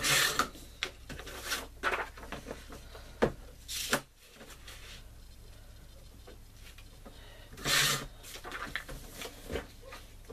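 Paper and craft supplies being handled on a tabletop: brief rustles and scrapes with a few light knocks, the loudest at the very start and about eight seconds in.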